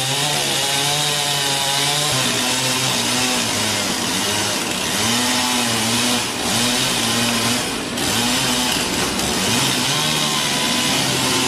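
Chainsaw running while cutting limbs from fig trees, its engine pitch dipping and rising again and again.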